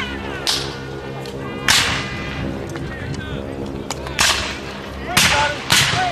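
Black-powder muskets fired with blank charges: five scattered sharp cracks, each with a brief echo, two of them close together near the end.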